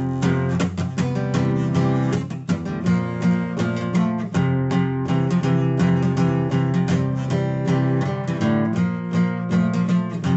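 Acoustic guitar strumming chords in a steady rhythm: an instrumental break in a song.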